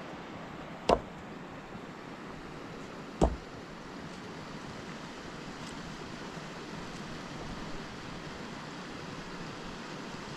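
Two sharp knocks about two and a half seconds apart, over a steady rushing hiss.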